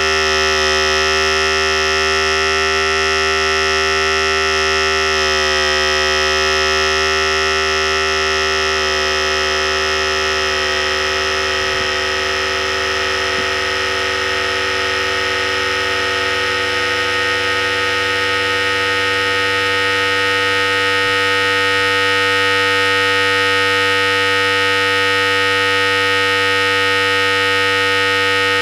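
Philips Series 5000 electric hair clipper running continuously, a steady motor buzz with a low hum, its tone shifting slightly a couple of times.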